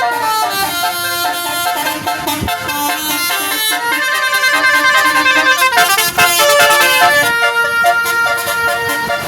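Bus telolet horn, a Basuri 12 multi-trumpet air horn, playing a melody: several horn tones sounding together and stepping from note to note.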